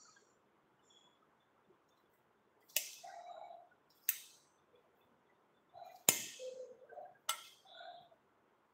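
Kitchen knife chopping vegetable pieces on a stone countertop: four sharp knocks of the blade against the counter, spaced a second or more apart, with softer sounds between them.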